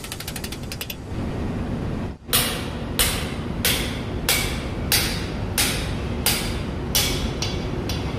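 Hammer blows on a steel drift tool set in a cylinder head's valve guide bore: about ten sharp metallic strikes at a steady pace of roughly one and a half a second, starting about two seconds in, as the valve guide is driven.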